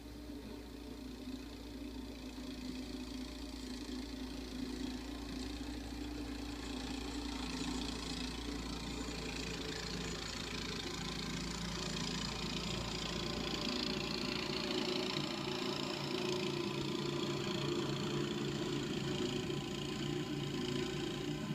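A motor engine running steadily and gradually getting louder, as if coming closer, with its pitch shifting a little about halfway through.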